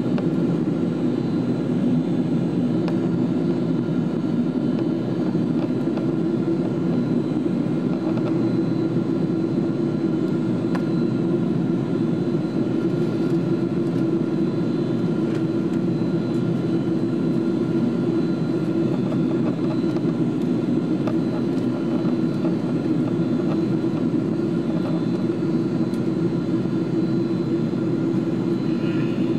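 Boeing 777-200 cabin noise in flight, heard from a window seat by the wing: a steady, even roar of jet engines and airflow, deep and constant, with a few faint steady hums above it.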